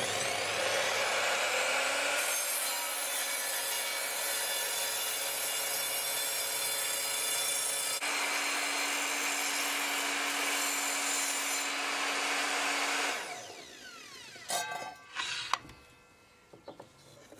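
Evolution R255SMS sliding mitre saw running at full speed and cutting through a softwood board at a 45-degree mitre. About thirteen seconds in, the motor is released and winds down, falling in pitch, followed by a few clunks.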